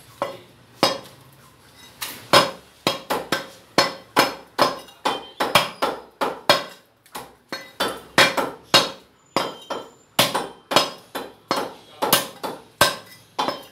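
Butcher's cleaver chopping goat meat and bone on a wooden block: a run of sharp chops, about two or three a second, with a few short pauses.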